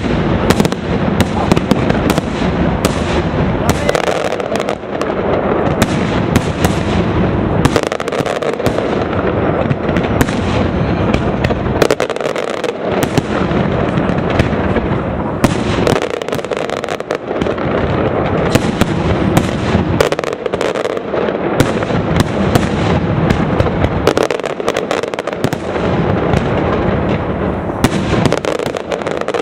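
Pirotecnia Caballer fireworks display: a dense, unbroken barrage of aerial shells and candles bursting overhead, with rapid overlapping bangs, many a second.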